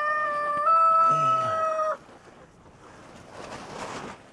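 A rooster crowing: one long, steady, held note that cuts off about two seconds in, followed by faint rustling.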